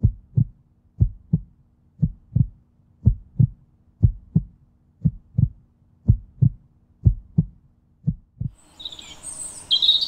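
Heartbeat: a slow, steady lub-dub of paired low thuds, about one beat a second. The beats stop shortly before the end, when birdsong comes in.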